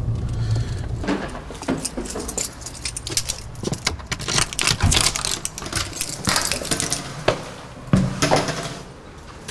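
Small metal objects jangling and clicking in quick irregular bursts, after a low vehicle rumble that fades in the first second.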